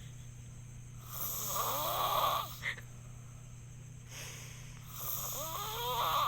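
Snoring: two long snores about four seconds apart, each lasting over a second, the second ending in a whistling tone that rises in pitch.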